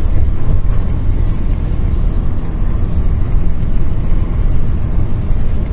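Steady low rumble of a moving sleeper coach, engine and road noise, heard inside the passenger cabin.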